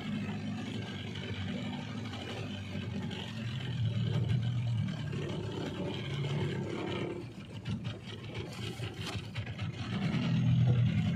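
Small fishing boat's engine running steadily while trolling. It eases off for a couple of seconds past the middle, then comes back louder near the end.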